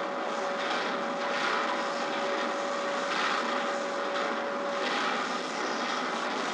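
Steady industrial noise of a drop-forge shop, with a steady high tone that stops about five seconds in, heard through a television's speaker.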